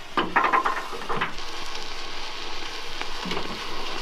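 A burning road flare gives a steady hiss, louder from about a second and a half in. Before that comes a quick run of knocks and rattles as things are handled in a pickup bed.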